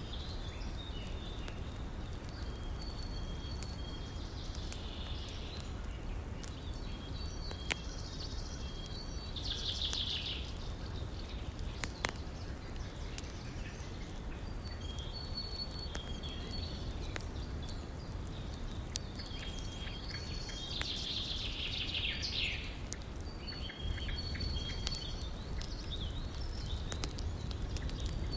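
Campfire crackling, with scattered sharp pops, over the steady rush of a river. High chirping in short repeated phrases comes and goes every few seconds.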